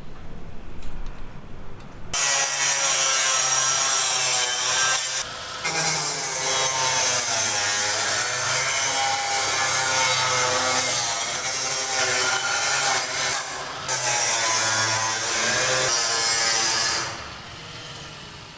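Power tool cutting, running hard with a steady motor hum under it. It starts about two seconds in, dips briefly twice, and stops near the end.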